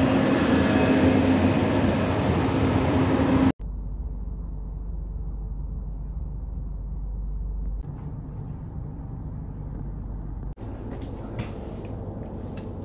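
Red Deutsche Bahn S-Bahn electric train at the platform, a loud steady rumble with a humming whine. It cuts off sharply at about three and a half seconds to the much quieter low rumble inside the carriage, with a few light clicks near the end.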